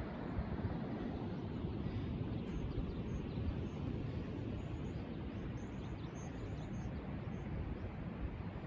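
Steady wind noise, with a few faint high chirps in the middle.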